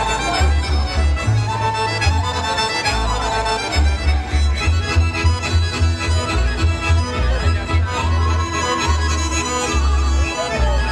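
Loud folk dance music from a stage sound system, with a strong, steady bass beat under the melody.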